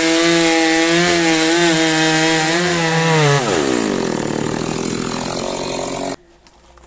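Stihl chainsaw held at high revs with a slight waver in pitch. The throttle is released about three and a half seconds in and the engine slows toward idle, then the sound cuts off suddenly about six seconds in.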